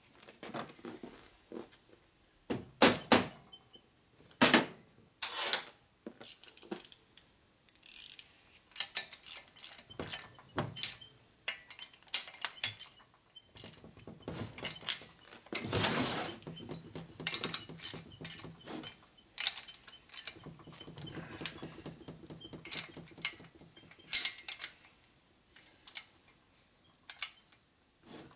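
Metal tools clinking and clicking against a Harley-Davidson shovelhead engine's heads and rocker boxes as bolts are tightened, with two stretches of rapid, even clicking and one longer scraping rasp midway.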